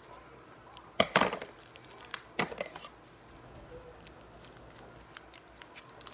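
A foil trading-card wrapper crinkling as it is cut with scissors, in two short bursts about one and two and a half seconds in, with faint rustling between. The pack is hard to open.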